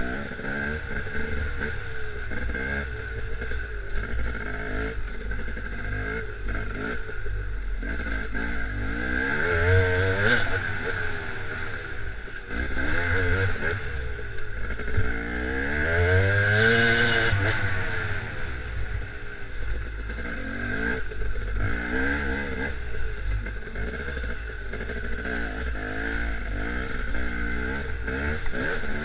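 Dirt bike engine revving up and down continuously as it is ridden over rough ground, with some clatter from the bike. The revs climb highest about ten seconds in and again around sixteen to seventeen seconds in.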